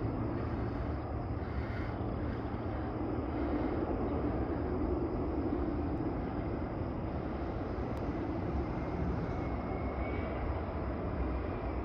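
Wildcat's Revenge, a hybrid roller coaster, running a test train through its layout: a steady distant rumble of the train on the track that swells a little a few seconds in.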